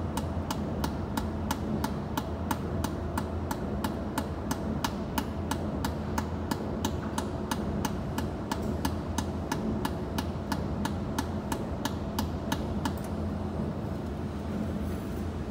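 Jewelry pulse laser welder firing on stainless steel: an even run of sharp ticks, about three a second, one per laser pulse, that stops about thirteen seconds in, over a steady hum.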